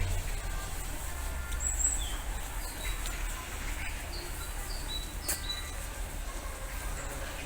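Small birds chirping: scattered short, high chirps, a few in quick succession about four to five seconds in, over a steady low background rumble.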